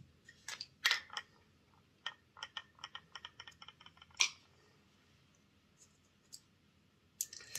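Light clicks and taps of small metal motor parts being handled while the magnet is taken out of a model locomotive's motor. A few sharp clicks, then a quick run of about ten light clicks between two and four seconds in, a louder click just after, and more scattered clicks near the end.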